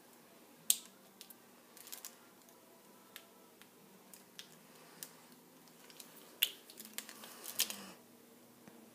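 Light clicks and taps of kitchen utensils as a teaspoon of vanilla extract is measured out: scattered short ticks, with a cluster of sharper ones near the end, over a faint steady hum.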